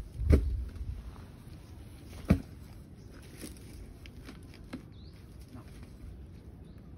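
A long-handled digging tool striking into soil: two heavy thuds about two seconds apart, the first the loudest, followed by a few lighter clicks and crunches of earth and debris.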